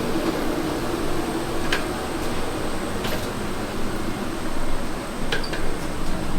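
Steady air-conditioning noise of aircraft boarding, with a few light clicks about two, three and five seconds in.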